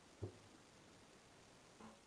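Near silence: faint room tone in a small tiled room, with one brief low thump about a quarter second in and a short faint sound near the end.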